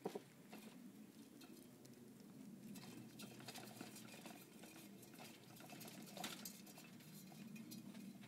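Faint, irregular small clicks and rustles from degus nibbling fresh vine leaves and moving about on the wire mesh of their cage, with a sharper click just after the start and another about six seconds in.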